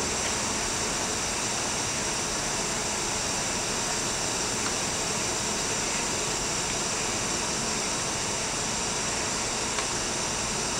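Milltronics RH30 vertical machining center running under power: a steady whirring hiss with a faint high whine, and a light tick near the end.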